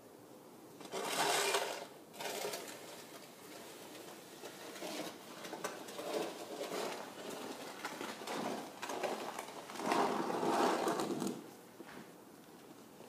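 A shovel scraping and pushing snow across a paved driveway in a series of separate strokes about a second long, the longest and loudest near the end.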